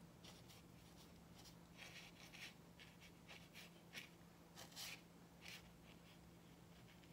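Faint swishes of a watercolour brush stroked across paper, a string of short strokes with the longest and loudest about four to five seconds in.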